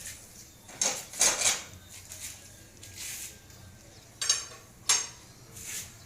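Metal hand tools clinking and scraping against each other: a few sharp clinks, two of them with a short metallic ring.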